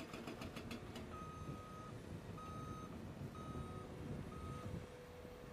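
Heavy construction machinery running, with a rapid clicking rattle, about seven a second, that stops about a second in. A reversing alarm then beeps four times, each beep about half a second long and about a second apart, as a machine backs up.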